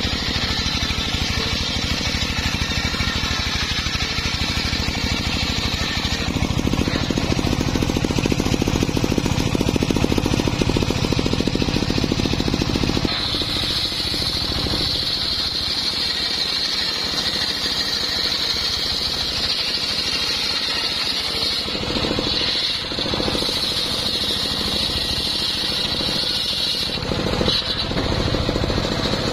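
A chainsaw running and cutting into an acacia log for the first dozen or so seconds. Then a homemade engine-driven circular sawmill saws lengthwise through the log, with a steady high whine from the blade in the wood over the engine's running.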